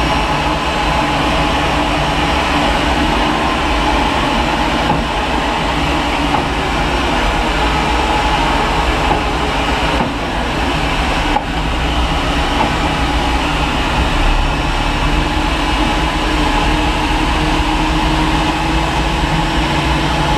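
Steady whine and rumble of jet aircraft turbine noise on the apron during a Boeing 737-800's pushback, with one tone slowly rising in pitch over the last few seconds.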